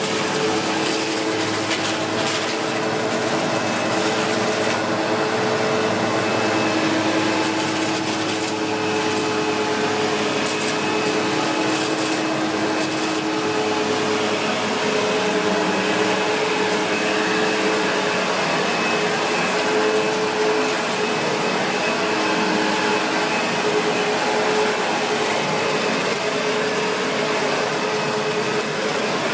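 SEBO X4 Extra upright bagged vacuum cleaner running steadily over carpet, its motor humming with a faint high whine, while it picks up scattered test dirt. Scattered ticks and rattles come in the first half.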